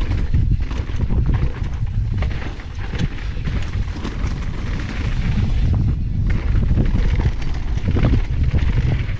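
Wind buffeting the action camera's microphone as a downhill mountain bike runs down a dirt and gravel trail, with tyres crunching over the loose surface and the chain and frame rattling in quick clicks over the bumps.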